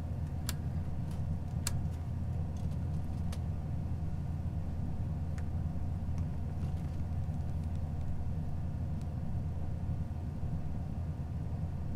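Steady low hum with a few light clicks in the first few seconds.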